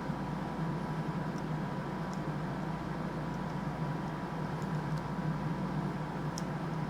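Steady low hum and hiss of background room noise, with a few faint, sharp ticks scattered through it.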